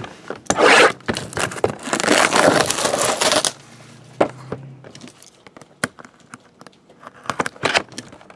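Plastic wrapping torn and crinkled off a trading card box in two loud bursts, followed by scattered light clicks and taps as the box is handled and opened.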